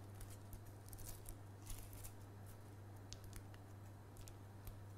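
Quiet room tone: a steady low electrical hum with faint, scattered light clicks and ticks.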